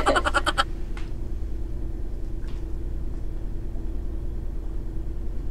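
A steady low hum, with a short burst of laughter right at the start.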